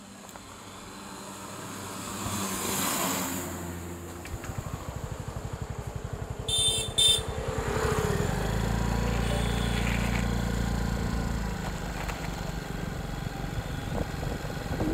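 Road traffic passing close: a motorcycle engine putters by, and a vehicle horn gives two quick short beeps about halfway through. A heavier vehicle then drones past with a low rumble.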